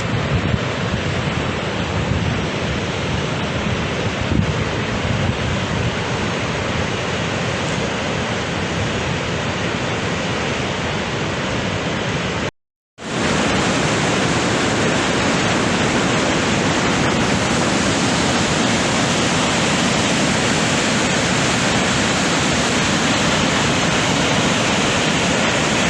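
Steady rushing noise of the Augrabies Falls, the Orange River pouring over the falls into the gorge, with some wind on the microphone in the first half. The sound drops out for a moment about halfway through, then the water noise carries on steadier and a little louder.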